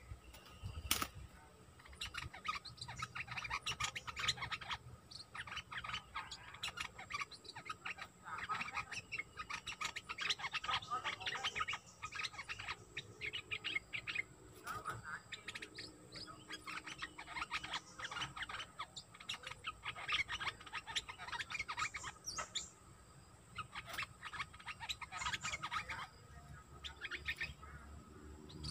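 Bulbul calling in quick runs of short chirping notes, phrase after phrase with brief pauses: the song a caged decoy bulbul uses to lure wild bulbuls.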